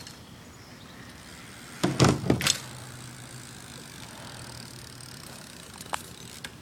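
Haro BMX bike landing a jump: a quick cluster of heavy thumps and rattles about two seconds in. A faint low hum follows, then two light clicks near the end.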